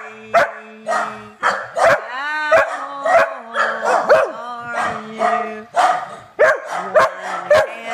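A dog giving a steady run of short barks and yips, about two a second, each one bending in pitch.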